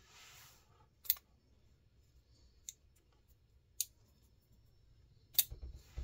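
CIVIVI Elementum Mini folding knife with brass handles being worked by hand: a brief rustle of handling, then four sharp metallic clicks a second or more apart as the blade is snapped open and shut, the last click the loudest.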